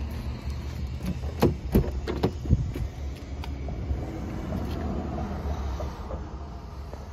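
Driver's door of a BMW 535i GT being unlatched and swung open: a quick run of four sharp clicks and clunks from the handle and latch within about a second, over a steady low rumble.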